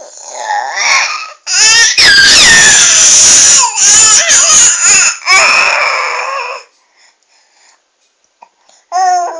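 A young child's loud, crying-like vocalising, wavering in pitch, in several long bursts from about a second and a half in. A short whining call starts near the end.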